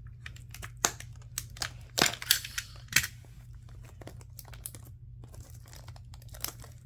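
Plastic shrink wrap on a trading-card booster box crinkling and tearing as it is pulled off by hand, in a quick run of crackles and clicks that is busiest in the first three seconds.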